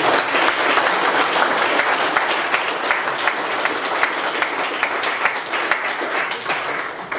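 Audience applauding: many hands clapping together, dying down near the end.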